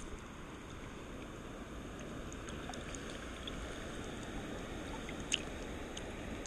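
River water flowing steadily around a wading angler, with a few faint ticks and one sharper click a little after five seconds in.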